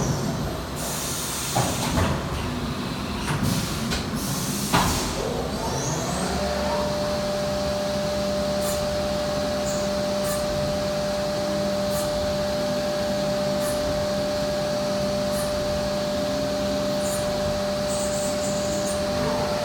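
CNC milling machine spindle winding down, then several hissing and clunking bursts like a pneumatic tool change, then the spindle winding back up about six seconds in to a steady high whine while it machines a brass spool.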